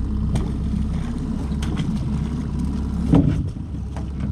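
Steady low rumble of a small boat's outboard motor running at idle, with a few knocks and clatters of gear on the aluminum boat; the loudest knock comes about three seconds in.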